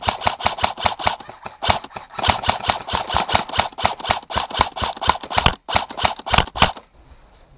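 Airsoft rifle fire: a rapid string of sharp shots, several a second, that stops shortly before the end.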